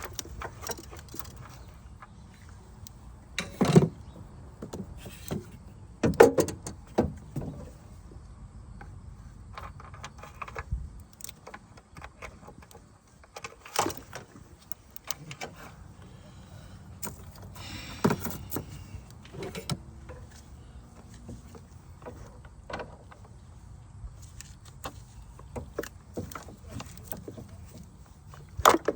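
Hand work on car parts: scattered clicks, knocks and light clatter as a part and its retaining clip are worked loose, over a steady low hum.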